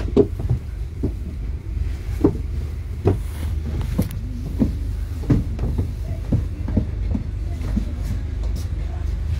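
Double-decker bus heard from on board: a steady low engine rumble with frequent short knocks and rattles.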